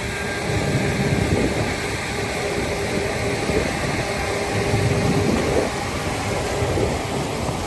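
Claas combine harvester running steadily, a dense machine noise with a faint steady hum.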